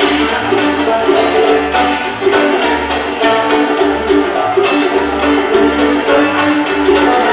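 Old-time string band playing a fiddle tune live: plucked strings over a steady, alternating bass line.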